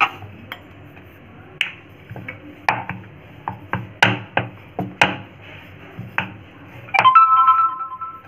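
Wooden rolling pin knocking against a wooden rolling board while dough is rolled out thin, irregular knocks about one a second. A short keyboard chime plays near the end.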